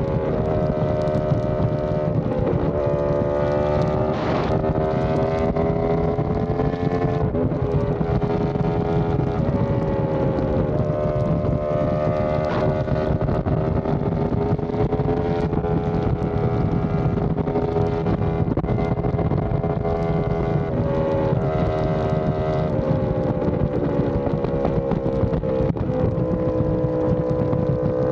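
Yamaha R1M's crossplane inline-four running through an SC Project exhaust at a steady cruise, its engine note rising and falling gently with the throttle, over wind rushing past the microphone.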